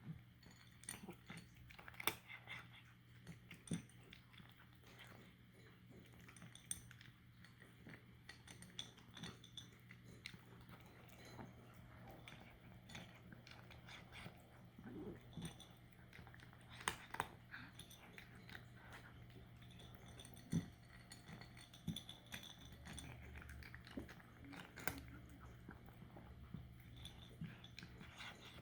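A cat crunching dry kibble: irregular, faint crunches and clicks of chewing, with a few louder crunches scattered through.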